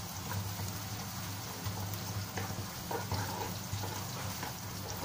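Sliced onions and garlic sizzling in hot oil in a wok, stirred with a spatula that scrapes the pan now and then.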